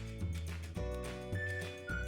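Background music with a steady beat and bass; a high, held melody line comes in about halfway.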